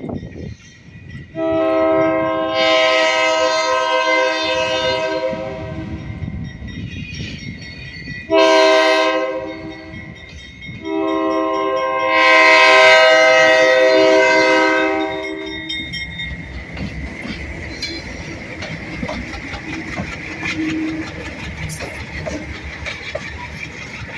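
Diesel freight locomotive's multi-chime air horn sounding a long, a short and a long blast, the tail of a grade-crossing warning. After the horn, the passing train keeps up a steady rumble with clickety-clack of wheels on rail joints.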